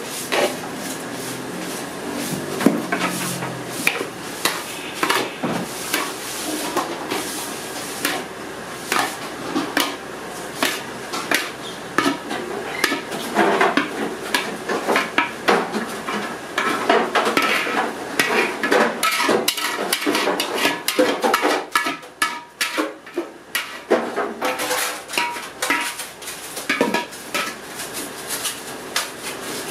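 Metal spatula scraping and knocking against a brass kadai as thick, crumbly khoya is stirred and scraped out of it. Irregular clanks and scrapes keep coming throughout.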